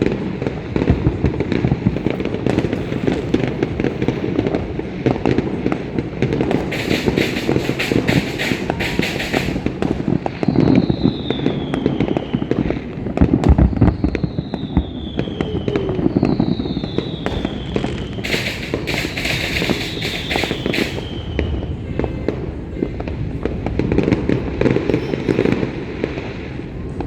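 Fireworks going off in a rapid string of pops and bangs, with two stretches of crackling and several whistles that fall in pitch in between.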